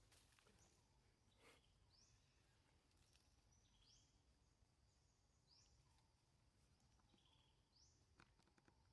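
Near silence, with a faint high bird call repeated about every two seconds and a few soft clicks.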